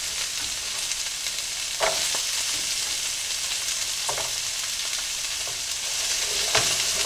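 Chopped celery, carrot and onion sizzling steadily in hot oil in a skillet as they are seared. A few light knocks sound, about two, four and six and a half seconds in, as a wooden spatula stirs them in the pan.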